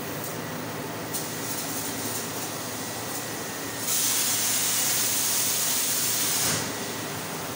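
CNC laser cutting machine cutting a metal sheet: a steady machine hum and hiss, with a louder hiss from the cutting head's gas jet starting about four seconds in, lasting about two and a half seconds, then dropping back.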